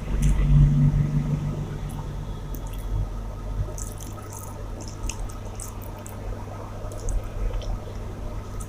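Close-up wet eating sounds: rice and chicken masala being chewed, with small squelches and scattered lip smacks.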